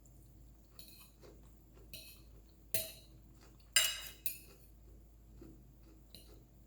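Eating utensils clinking and scraping against a plate in about six short, separate strokes, the loudest about four seconds in.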